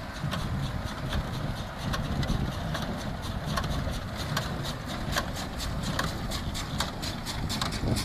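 John Deere tractor engine running under load as it pulls a vintage Massey Ferguson small square baler through hay. Over it the baler's plunger clacks in a steady rhythm, about three strokes every two seconds.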